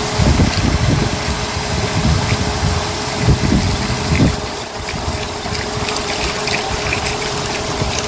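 A motor running steadily over rushing, splashing water, with heavier surges of water in the first four seconds that then ease off.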